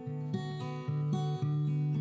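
Background music: an acoustic guitar playing plucked chords, changing every half second or so.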